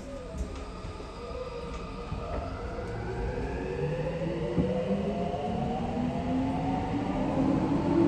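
Subway train pulling out of a station, heard from inside the car: the electric traction motors whine, rising in pitch and growing louder as the train accelerates over a low running rumble.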